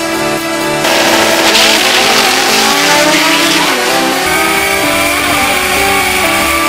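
Honda drag car's K-series four-cylinder engine revving loudly at the line, then accelerating hard down the strip, its pitch climbing steadily from about four seconds in.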